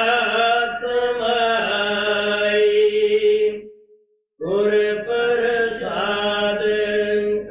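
Devotional chanting in long, drawn-out held notes. It breaks off briefly a little over halfway through, then resumes.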